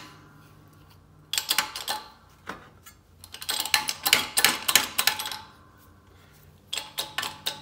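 Hydraulic shop press being pumped by hand, with a screwdriver standing in for its broken pump handle, as the ram is brought down toward the louver punch. Three bursts of rapid metallic clicking, with short pauses between strokes.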